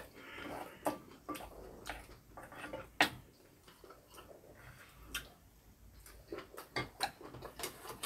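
Metal chopsticks and spoons clicking lightly against ceramic bowls, about one tick a second, with soft chewing in between.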